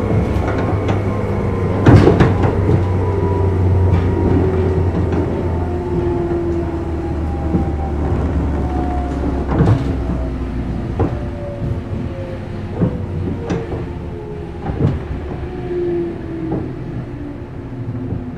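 JR 115 series electric train running, heard from inside the KuMoHa motor car: the whine of its MT54 traction motors and gearing falls steadily in pitch as the train slows, over a steady rumble of wheels on rail. Sharp wheel knocks come now and then, the loudest about two seconds in.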